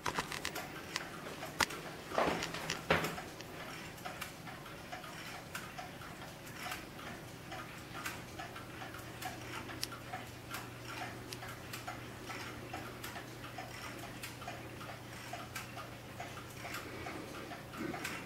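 Several Schatz swinging wall clocks ticking at once, their ticks overlapping out of step. A brief louder scuffing noise about two seconds in.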